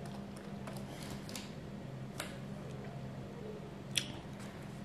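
Eating sounds: a fork picking at food in a poke bowl, with a small click a couple of seconds in and a sharper one near the end, over a steady low hum.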